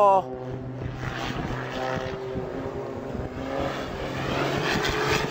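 Propeller engine of a smoke-trailing aerobatic biplane running in a steep dive, a steady low hum with a wavering higher tone that comes and goes. It grows louder toward the end.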